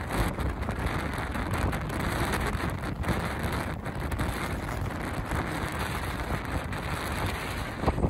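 Strong wind buffeting the microphone, with water rushing and splashing along the hull of a heeling sailboat under way.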